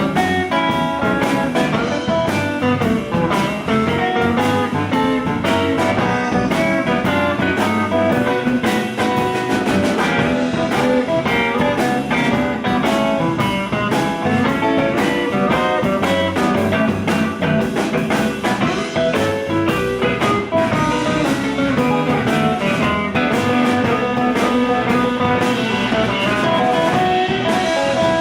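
Live blues band playing an instrumental passage led by guitar, with busy, continuous notes and no singing.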